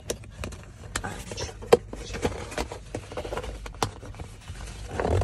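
Paper instruction leaflets rustling and cardboard packaging being handled, with irregular light clicks and taps. The sharpest tap comes about one and a half seconds in, and there is a louder rustle near the end.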